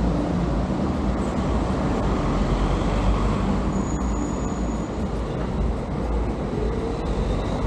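Steady vehicle and road noise with a heavy low rumble, continuous and without pauses.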